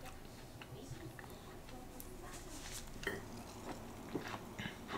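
Faint, scattered small clicks and taps of food and its packaging being handled, a few more of them in the second half.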